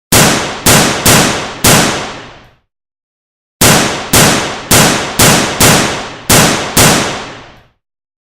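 Bomb explosion sound effects in two runs: four blasts about half a second apart, then after a gap of about a second, seven more. Each hits suddenly and dies away, the next cutting in before the last has faded.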